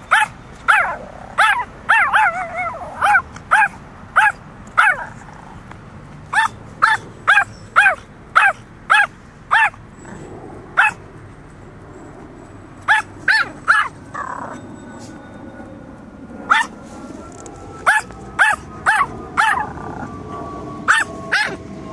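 Yorkshire terrier barking repeatedly at an apple on the ground: short, high-pitched yaps in quick runs of several, with pauses of a second or two between runs.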